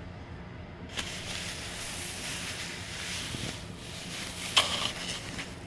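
Plastic bag and loose fibrous packing insulation rustling and crinkling as hands dig through them, starting about a second in, with one sharper, louder crinkle near the end.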